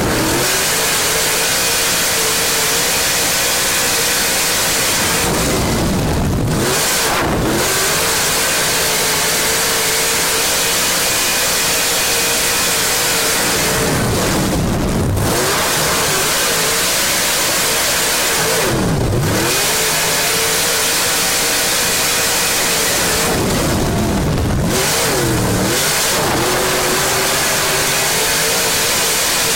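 Dirt-track race car engine heard from inside the cockpit at racing speed, held at high revs on the straights and dipping sharply in pitch each time the driver lifts for a corner before climbing back, about six times.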